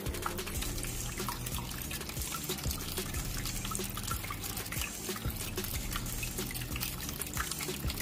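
Water trickling and dripping steadily, as in a small tabletop fountain running, under background music.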